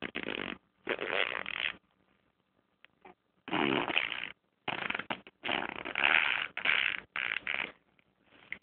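Raspy vocal noises in about six short bursts, each half a second to a second and a half long, with brief pauses between them.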